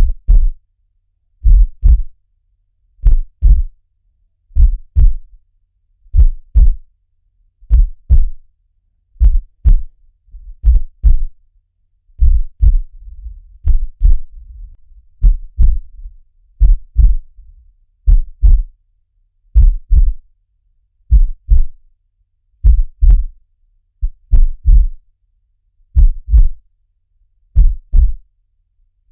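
Heartbeat sound: a slow, steady lub-dub, one double thump about every one and a half seconds. A faint low rumble sits under the beats for a few seconds in the middle.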